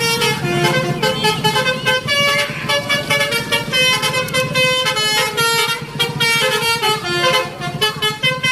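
Bus 'telolet' basuri musical horn playing a tune of multi-tone horn notes that step from pitch to pitch.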